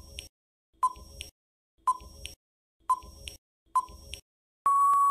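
Quiz countdown timer sound effect: five short electronic beeps about one a second, then a longer steady beep at the same pitch near the end, marking time running out.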